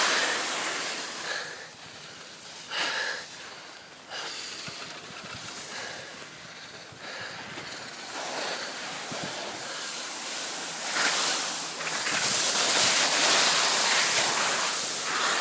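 Skis hissing and scraping over snow while skiing downhill, with wind rushing on the microphone. The rushing quietens for a few seconds and then swells again over the second half.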